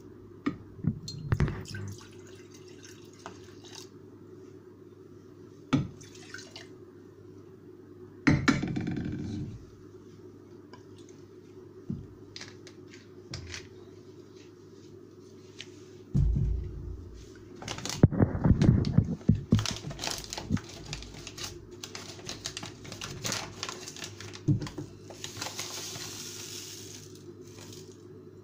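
Vinegar poured from a bottle into a glass jar in a couple of goes, with glassy knocks and clinks of the jar and bottle against the glass plate and counter in between.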